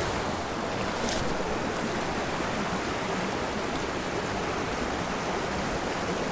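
Small mountain creek's water rushing, a steady even rush.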